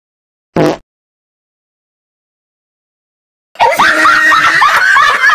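A brief pitched blip, then dead silence for almost three seconds. Then a loud, chaotic chorus of many high voices screaming and shrieking all at once, their pitches sliding up and down.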